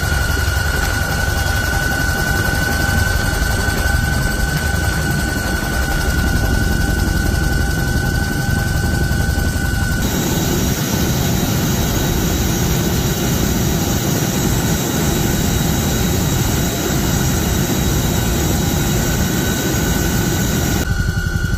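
Helicopter noise: a steady rumble with a high whine for the first ten seconds. It then changes abruptly to the CH-47 Chinook's twin turbine engines and rotors running close by, a loud rushing with a high turbine whine.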